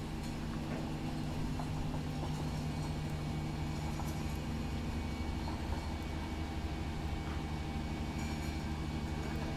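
Hydraulically driven slag skimming machine running with a steady low mechanical drone as it slews its boom and skimming blade, with a few faint clicks.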